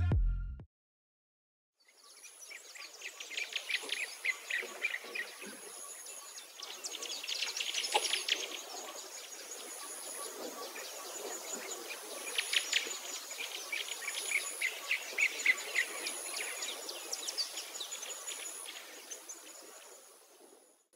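Outdoor ambience of small birds chirping over a high, thin insect trill that pulses on and off, fading out near the end.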